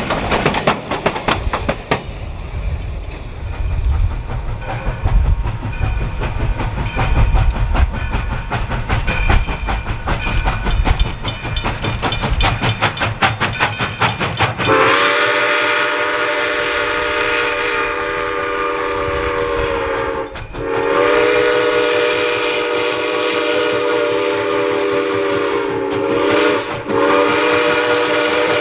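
Black River & Western steam locomotive No. 60 and its train running past, with a heavy low rumble and wheels clicking over the rail joints. About halfway through, the locomotive's steam whistle starts blowing a long chord of several notes, broken twice by short gaps. The whistle is the loudest sound.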